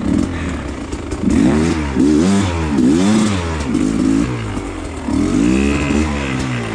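Dirt bike engine revving up and down in short throttle blips, its pitch rising and falling about five times.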